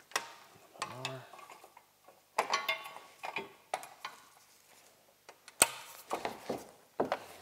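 Handling noises from a plastic ski skin and snowmobile ski being worked on a bench: scattered knocks, rustles and clinks of tools, with a sharp click late on and a short low hum about a second in.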